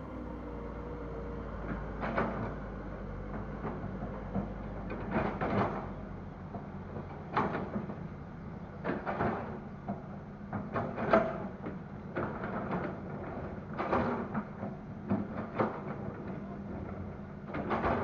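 Hitachi excavator's diesel engine running steadily while it loads soil into a dump truck, with repeated sudden knocks and scrapes spread irregularly through the work.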